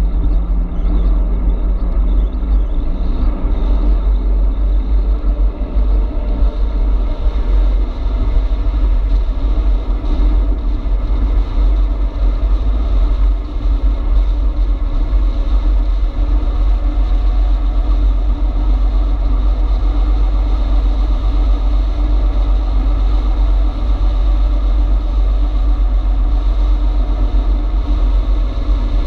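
Steady low wind rumble on the microphone of a camera mounted on a moving e-bike, with a faint steady hum above it.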